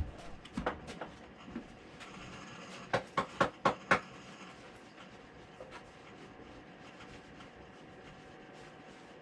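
Wooden guitar body being knocked to shake routing sawdust out of the fresh cavity: a few light knocks, then a quick run of about five sharp raps about three seconds in.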